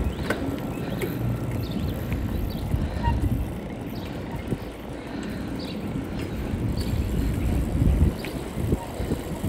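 Gusty wind rumbling on the microphone over the rolling of a bicycle's tyres on asphalt, with a few faint clicks.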